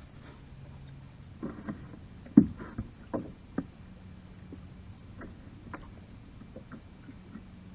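Kayak and paddle knocking against each other several times, the loudest thump about two and a half seconds in, followed by scattered small clicks over a faint steady low hum.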